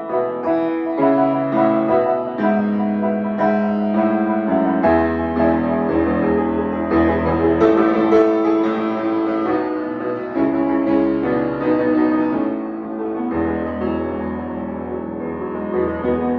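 Piano music: held chords and a slow melody, with a low bass coming in about five seconds in and again near the end.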